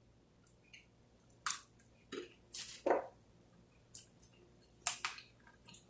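Close-up eating sounds of chicken wings being chewed: a handful of short wet mouth sounds and lip smacks, irregularly spaced about half a second to a second apart.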